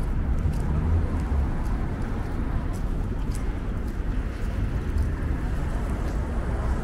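Busy city street ambience: a steady low rumble of traffic on a multi-lane avenue, with a few faint clicks over it.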